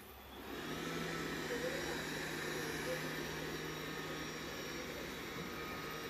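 Xiaomi X20+ robot vacuum's suction fan spins up about half a second in, then runs steadily with a low hum underneath.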